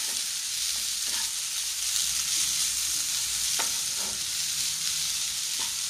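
Grated coconut and sugar sizzling in a non-stick frying pan as a spatula stirs it, with a few sharper scrapes of the spatula against the pan. The sugar has melted and the filling is turning sticky.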